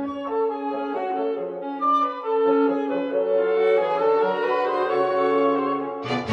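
Instrumental background music: a slow melody of long held notes.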